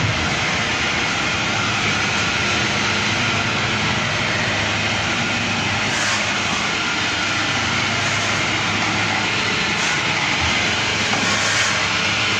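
Olive oil mill machinery running: a loud, steady mechanical noise with a low hum underneath.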